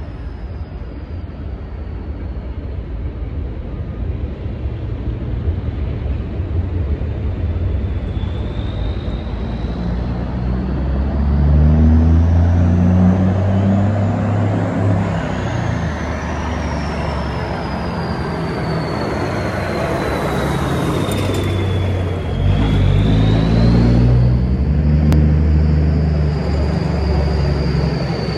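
Semi truck's turbo-diesel engine running, its note swelling and easing, with a turbo whistle that climbs in pitch, falls away, and jumps up again about 22 seconds in when the engine note drops suddenly and picks back up.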